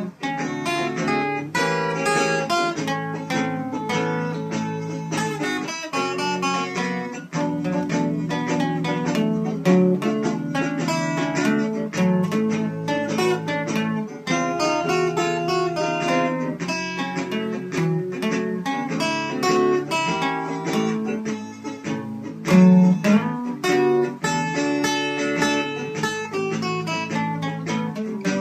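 Acoustic guitar playing an instrumental passage: quick single picked notes over strummed chords, with a louder accent near the end.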